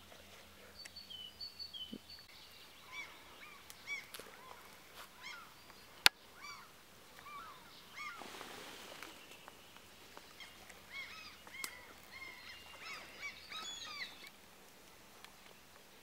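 Birds calling with many short, repeated chirps, with a single sharp click about six seconds in and a brief rush of noise around eight seconds.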